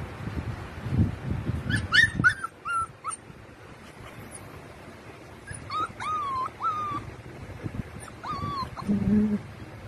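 Siberian husky puppies whining and yipping: a quick run of short, high yips about two seconds in, then longer whines that rise and fall in pitch around six seconds and again near the end. A low wind rumble on the microphone runs under the first two seconds.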